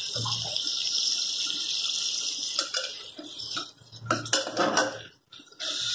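Onions, tomatoes and ginger-garlic paste sizzling as they fry in a metal pressure cooker, with a metal spoon scraping and clinking against the pot as they are stirred. The clinks cluster a few seconds in, while the hiss briefly drops.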